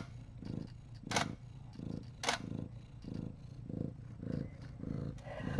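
Mother cat purring, a low even pulse of about two beats a second. Two sharp clicks come about a second and two seconds in.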